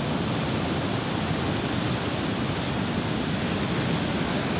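Ocean surf breaking on a beach, a steady, even rush of noise.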